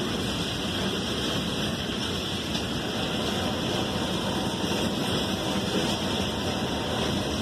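Freight train cars rolling past, a steady noise of wheels on rail that holds level without a break.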